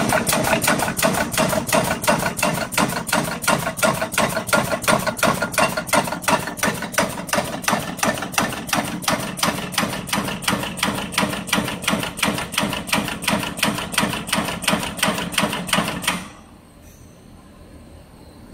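Resistance spot-welding machine welding a fan guard's middle ring onto its radial wires, one sharp clack per weld in a fast, even rhythm of about four or five a second. The welding stops about sixteen seconds in.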